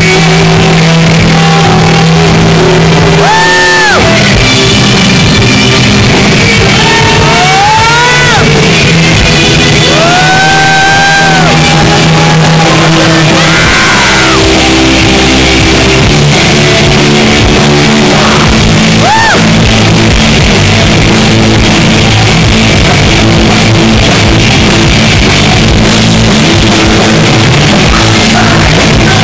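Live rock band playing very loud through amplifiers: distorted electric guitars with shouted vocals, close enough to the stage that the recording is pushed to the top of its level.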